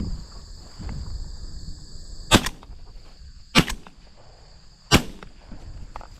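Three shotgun shots about a second and a quarter apart, each a sharp, loud crack, fired at doves. A steady high drone of crickets runs underneath.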